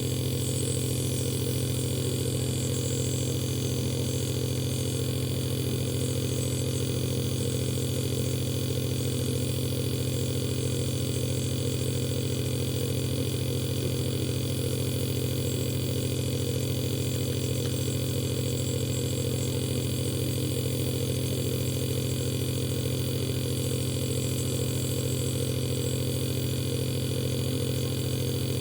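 Compressor nebulizer running: a steady motor hum that holds the same pitch, with no breaks.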